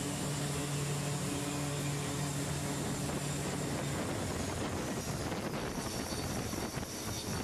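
A C-2A Greyhound's turboprop engines running, a steady loud drone with a low hum. The hum drops out about four seconds in, leaving a rougher, fluttering rush of propeller and engine noise.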